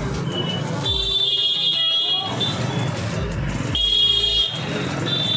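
Busy street ambience with shrill vehicle horns honking, one long blast about a second in and another near the end, over crowd chatter and music with a low, steady thudding beat.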